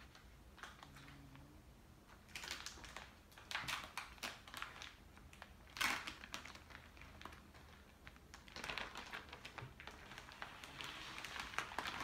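Clear plastic wrapping crinkling and rustling as it is peeled off a large printed doll backdrop, coming in bunches of crackles, with one sharp crackle about six seconds in.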